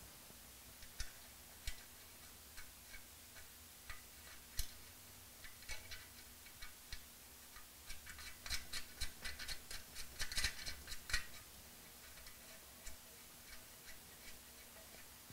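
Small metal clicks and clinks of nuts and washers being started by hand on the cylinder head studs of an AeroVee engine: scattered single clicks at first, then a quick run of clicks a little past halfway.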